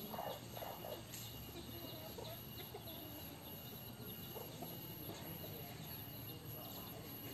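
Crossbred chickens foraging, giving short low clucks and calls, most of them in the first second, over a run of small high peeps from chicks.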